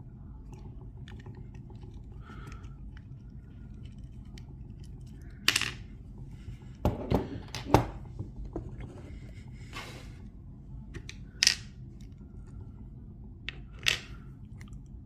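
Sharp metallic clicks and knocks from a Master Lock Pro Series padlock being handled, over a low steady hum. The loudest clicks come in a cluster about halfway through, with a brief scraping rustle after them and two more clicks near the end.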